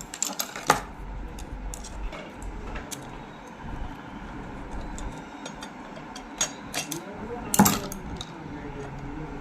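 Metal sewing-machine parts and tools being handled: scattered light clicks and clinks, with one louder knock near the end.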